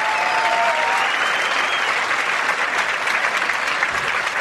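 Theatre audience applauding and cheering at the end of a musical number, with a few brief sliding whoops in the first couple of seconds.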